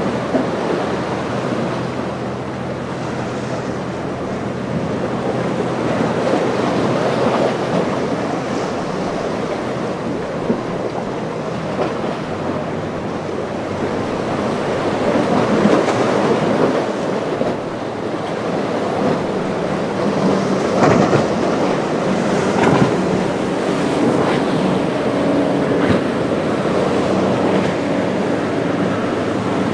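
Rough surf and choppy water breaking, with wind buffeting the microphone and a low, steady hum of outboard engines from boats running through the chop.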